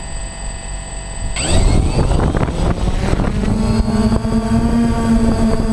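A drone's electric motors and propellers whine quietly at idle, then spin up sharply about a second and a half in as it lifts off and climbs straight up. Its pitch rises and then settles into a steady propeller buzz over rushing air. It is heard close up through the drone's own onboard camera.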